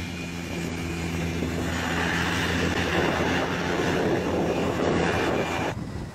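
Propeller engine of a lime-spreading topdressing plane running at high power: a steady drone that grows louder over the first few seconds, then cuts off abruptly near the end.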